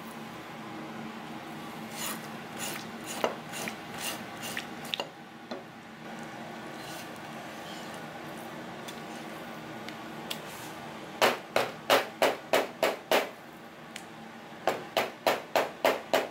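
Kitchen knife scraping and cutting along a raw fish fillet on a plastic cutting board. There are scattered rasping strokes at first, then two runs of quick, evenly spaced strokes, about three a second, in the second half.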